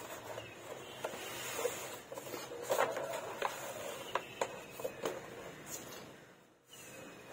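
Handling noise as a wooden board and paper are shifted on a concrete floor: irregular taps, knocks and light scrapes, some with a short ring.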